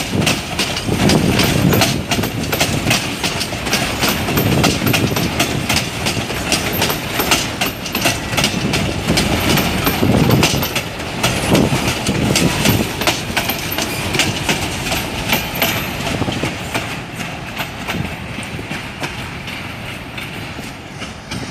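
Freight wagons rolling past close by, their steel wheels clattering over the rail joints in a rapid run of clicks over a steady rumble. The clatter fades over the last few seconds as the end of the train draws away.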